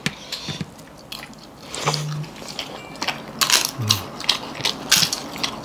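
People eating rice, with chewing and lip-smacking mouth sounds and small clicks of food being handled. Two brief hums are heard, one about two seconds in and a falling one about a second later.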